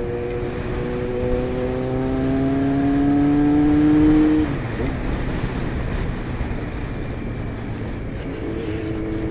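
Honda CBX 750's air-cooled inline-four engine pulling with revs climbing slowly for about four seconds, then dropping away as the throttle eases off. The revs hold steady again near the end. Wind and road noise run underneath.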